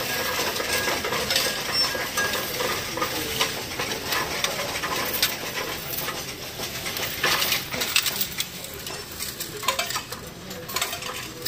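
Loose coins rattling and clinking continuously as they are tipped from a bag into a coin-counting machine and run through it, thinning slightly near the end.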